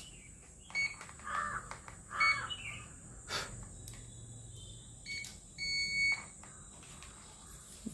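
Digital multimeter beeping: three short, high electronic beeps and one longer beep near six seconds in, with light handling of the test leads and a single click.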